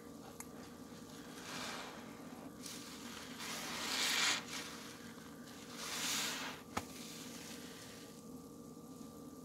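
Wet, sudsy sponges soaked in pine cleaner being squeezed: three squishing squeezes, the middle one loudest, followed by a short sharp click.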